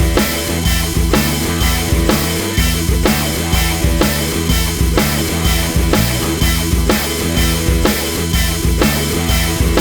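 Background music: a rock-style track with a steady drum-kit beat, about two hits a second.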